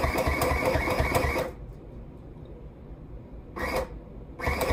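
Singer M1000 electric sewing machine stitching through work pants in pedal-controlled runs: it runs for about a second and a half, stops, gives a brief burst, then runs again near the end.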